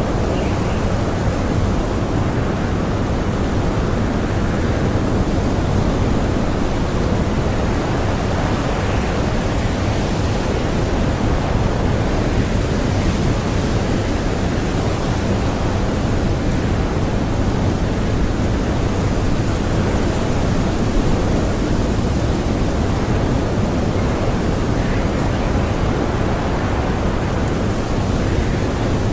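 Blizzard wind blowing steadily, a dense, even rush of noise that holds at one level with no single gust standing out.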